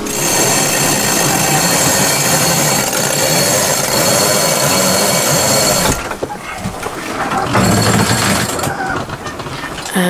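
Electric deck winch running under load as a sheet is winched in: a steady mechanical whine and grinding that cuts off abruptly about six seconds in. A shorter burst of noise follows a little later.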